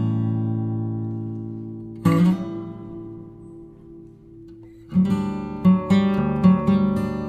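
Background music on acoustic guitar: strummed chords that ring out and fade, then from about five seconds in a quicker plucked pattern.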